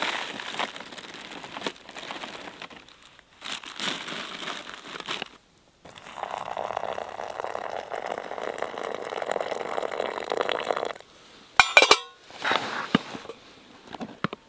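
A paper oatmeal pouch crinkling as it is handled, then hot water poured from a metal mug into the pouch in a steady stream for about five seconds. Near the end the mug is set down with a sharp metallic clink, and the pouch crinkles again.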